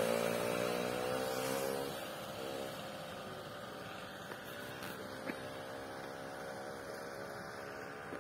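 A steady machine-like hum with several evenly spaced overtones, louder for the first two seconds and then level, with two faint clicks around the middle.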